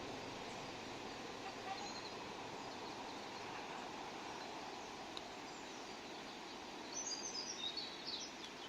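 Steady outdoor background hiss, with a small bird chirping a quick run of high notes near the end.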